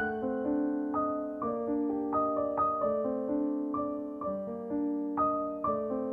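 Background piano music: a melody of struck notes over chords, the notes changing a few times a second.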